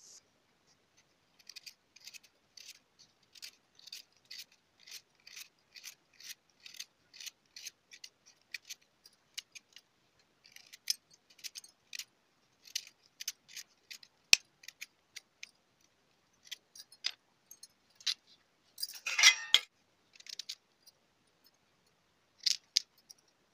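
A knife blade scraping the skin off a raw green mango in short strokes, about two a second at first, then more irregular. About three-quarters of the way through comes one longer, louder scrape.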